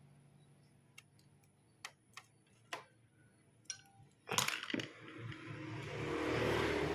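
Light clicks and taps of tools and metal parts being handled, five or so spread over the first four seconds, then a loud clatter a little after four seconds, followed by a noise that swells up toward the end.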